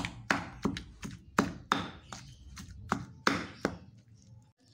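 Stone pestle pounding a spice paste with dried anchovies in a stone mortar, about three sharp strikes a second, stopping shortly before the end.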